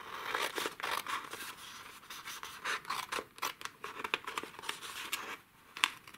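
Scissors cutting through a sheet of patterned designer paper: a run of irregular snips, with the paper rustling as it is turned and guided along the cut.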